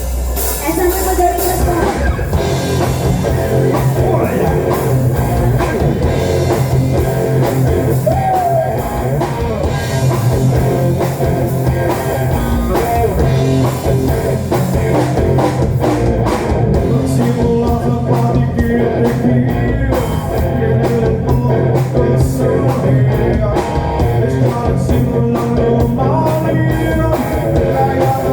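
Rock song with singing, a drum kit and electric guitar, the guitar played through a home-built amplifier and hi-fi speakers.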